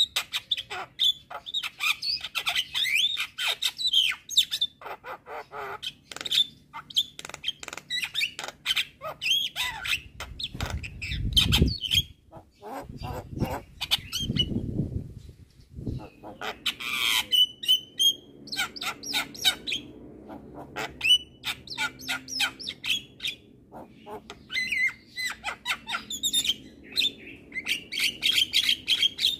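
Javan myna (jalak kebo) singing a long, busy song of rapid clicks, chattering notes, short whistles and squawks. Two low, rougher stretches break in about ten and fourteen seconds in.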